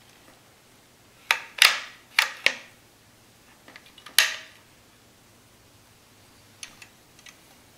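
Sharp metallic clicks and clacks of rifle parts being handled and fitted together during reassembly. There are about five loud ones in the first half, then a few faint ticks near the end.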